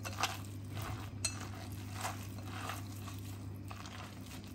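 Hand mixing and squeezing grated raw potato with egg and flour in a glass bowl: repeated soft, wet squishing strokes, a little under two a second, with a couple of light clicks against the glass in the first second and a half. A steady low hum runs underneath.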